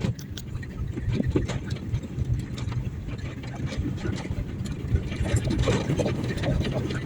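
A vehicle engine running steadily at a low idle-like hum, with faint scattered clicks and knocks over it.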